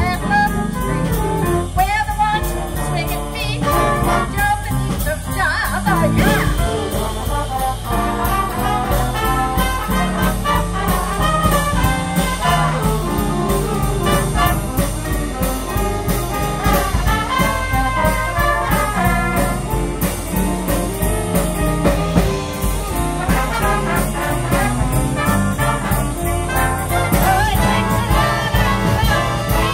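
Swing big band playing an instrumental passage live, with saxophones, trombones and trumpets over drums.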